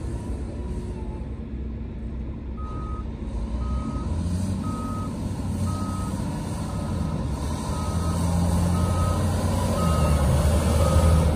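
Volvo A40E articulated dump truck's diesel engine running as the truck manoeuvres, its revs rising and falling and growing louder toward the end. From almost three seconds in, its reversing alarm beeps at one steady pitch about once a second.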